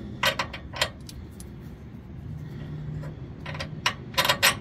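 Metal clinks and rattles of long 14 mm bolts knocking against the step's metal mounting bracket as they are fitted by hand. A few sharp clinks come within the first second and a quicker cluster near the end.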